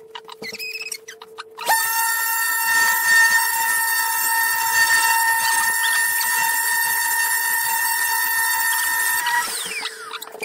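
Festool random orbital sander fitted with a white buffing pad, running over a wooden board. It starts about two seconds in with a loud, steady high whine, is switched off near the end, and its pitch falls as it spins down.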